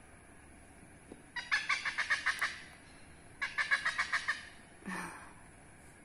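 Hornbill calling: two runs of about ten quick, pulsed notes, a second apart, then one shorter, lower call near the end.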